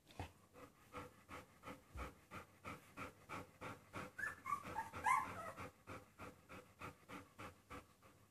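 Bernese mountain dog panting rapidly, about four breaths a second. A few short high squeaks come between about four and five seconds in.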